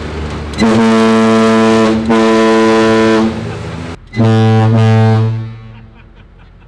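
Humvee-mounted air horns blasting: two long blasts of a many-note horn chord about a second and a half each, then a deeper, lower-pitched blast about four seconds in that fades away over about a second. A low rumble runs under the start.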